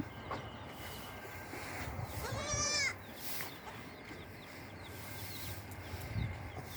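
A goat bleating once, a single high, arching call lasting under a second, about two seconds in.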